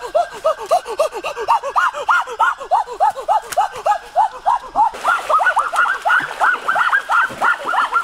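A dense chorus of animal calls: many short, clear calls that rise and fall in pitch, several each second and overlapping. About five seconds in, more higher calls join and the chorus grows fuller.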